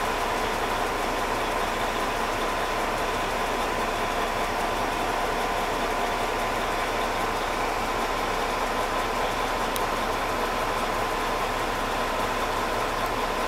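Caterpillar 972H wheel loader's Cat C13 six-cylinder diesel running steadily at idle, heard from inside the cab, with a constant high whine over the engine noise.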